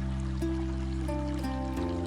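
Slow ambient new-age music of long held tones over a deep bass, the low notes shifting near the end, with faint trickling water mixed underneath.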